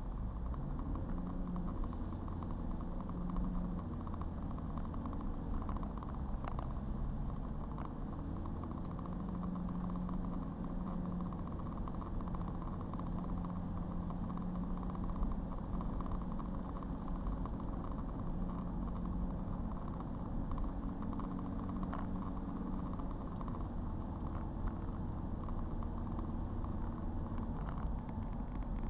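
Car engine and road noise while driving: a steady low rumble with an engine hum that shifts in pitch now and then.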